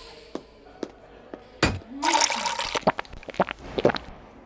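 Vodka poured from a glass bottle into a shot glass: a short splashing pour about two seconds in, with several sharp clicks and taps of glass around it.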